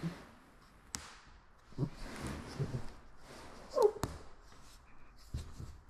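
A few sharp clicks and knocks with dull thumps, from hands working materials at the bench, and a brief squeak about four seconds in.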